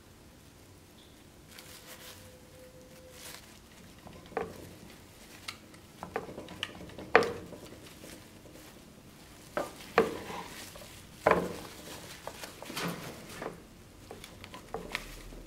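Irregular clinks, knocks and scrapes of a dagger and small hand tools being handled on a metal tray during work on the hilt, with the sharpest knocks about seven, ten and eleven seconds in.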